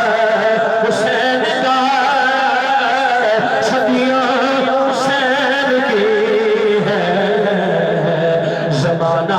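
A man singing in long, wavering held notes, in a melodic recitation style, with no clear words.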